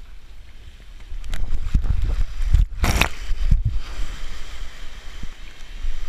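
Surf water sloshing and splashing against a tumbling camera, with a heavy low rumble and knocks, and one loud splash about three seconds in.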